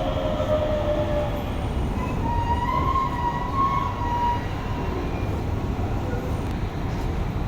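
Hokuso 7300-series train (car 7301) running, its GTO-VVVF traction inverter whining over the steady rumble of wheels on track. One whine falls in pitch in the first second, and a higher one comes in about two seconds in and fades out around four and a half seconds.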